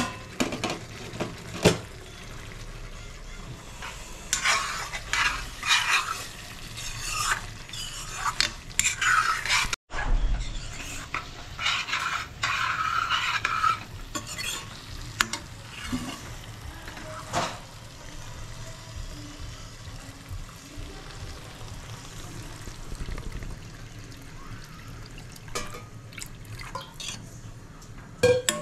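A steel ladle stirring and scraping a thick, frying masala with potato pieces around a stainless steel kadai, over a low sizzle. The masala is stirred constantly so the cashew-thickened paste does not catch on the bottom. The scraping comes in bursts for the first half, then gives way to quieter, occasional knocks.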